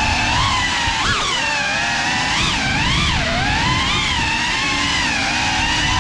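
GEPRC Cinelog35 3.5-inch ducted cinewhoop drone in flight, its motors and propellers whining, the pitch swooping up and down with the throttle.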